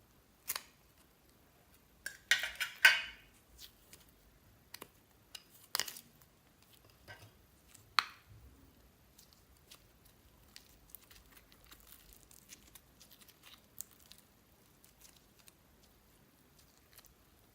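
Slime being handled and mixed: scattered sticky clicks, pops and taps, with a louder crackly burst of clicking about two to three seconds in and sharp single clicks around six and eight seconds, then faint small crackles.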